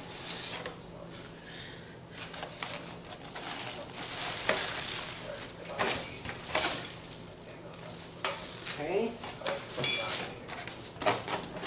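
Plastic-wrapped lamp parts crinkling and rustling as they are pulled out of a styrofoam packing tray, with scattered light knocks and clicks.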